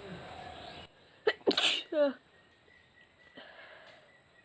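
A woman sneezes once, about a second and a half in, a sneeze she has deliberately brought on. It starts with a sharp catch of breath, then a loud burst that ends in a voiced 'choo' falling in pitch.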